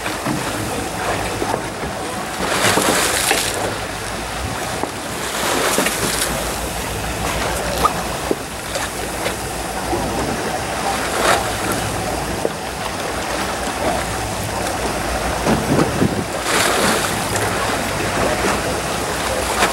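Fishing boat at sea: a steady low engine rumble under a continuous wash of water against the hull and wind on the microphone, swelling several times.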